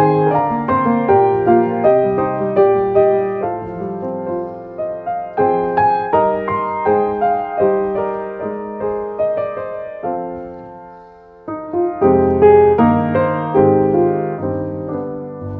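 Background piano music: a melody of single struck notes that fade after each strike. It drops away briefly about two-thirds of the way through, then picks up again.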